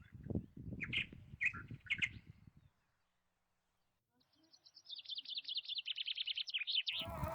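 Small birds chirping, a few short chirps in the first couple of seconds over some low knocking, then after a brief silence a fast, slightly falling trill of rapidly repeated notes. Music comes in at the very end.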